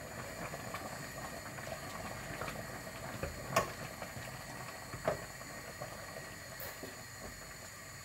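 Pot of carrots, potato and meat bubbling at the boil on a gas burner. A wooden spoon stirs it, with two sharp knocks against the stainless pot, one about three and a half seconds in and one about five seconds in.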